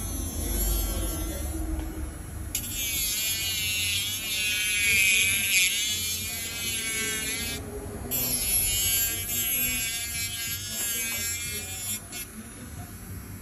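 Electric nail drill (e-file) whining as its bit grinds down acrylic nails, the pitch wavering as the bit is pressed on and lifted off the nail. It runs in two stretches with a short break about midway.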